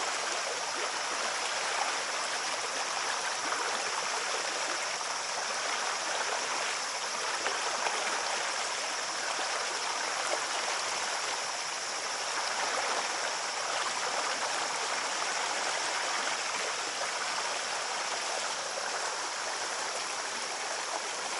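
Small stream cascading over rocks into a pool: a steady, even rush of running water.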